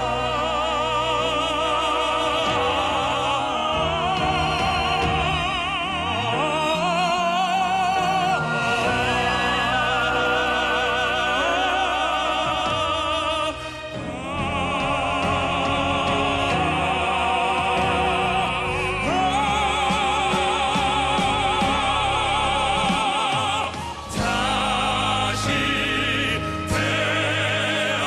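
Male crossover vocal quartet singing in operatic style, sustained notes with vibrato, over backing music. The singing breaks off briefly twice, about halfway and near the end.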